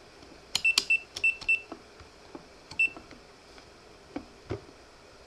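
Multimeter's rotary dial being turned through its settings: a quick run of clicks, most with a short high beep, about half a second in, then one more click and beep near three seconds and two softer knocks later.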